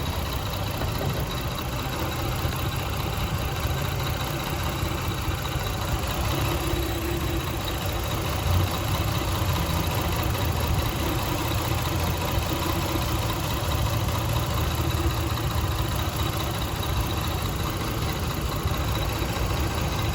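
1999 Lexus RX 300's 3.0-litre V6 idling roughly and unevenly in park, misfiring on cylinder 6; the owner puts it down to a failing ignition coil. A single short thump about eight and a half seconds in.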